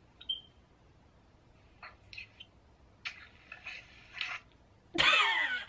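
Quiet call audio over a phone video chat. A short high chirp comes just after the start, faint rustles and clicks follow as the phone at the other end is handled, and near the end there is a short loud voice falling in pitch.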